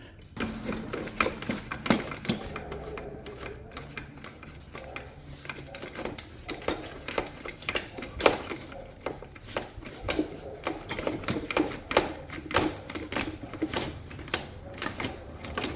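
Irregular light metallic clicks, clinks and knocks, several a second, from the rear brake caliper, axle and wheel hardware of a motorcycle being handled as the caliper and rear wheel are worked off.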